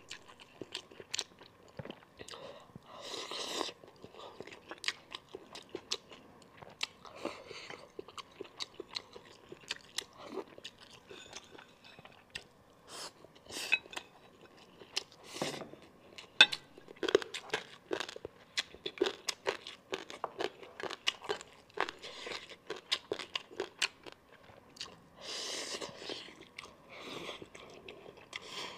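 Close-miked chewing and mouth sounds of a person eating monkfish offal and rice, with many short, sharp clicks and smacks and a few longer soft rushes of breath-like noise.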